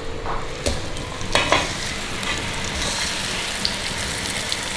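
Half a lobster frying in a small pot of butter, vegetable oil, soy sauce and garlic: a steady sizzle, with two short knocks about a second in.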